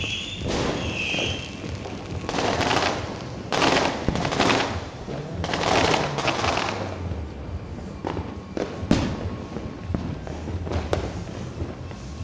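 Aerial fireworks going off: a string of short noisy bursts, each under a second, in the first seven seconds, then sharp single bangs about eight, nine and eleven seconds in, the one near nine seconds the loudest.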